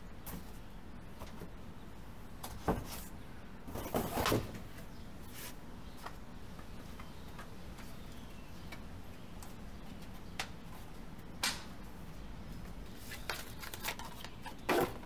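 Hands handling a bicycle tyre, wheel rim and cardboard packaging: a few scattered knocks, scrapes and rustles, the loudest about a quarter of the way in and just before the end, over a steady low background noise.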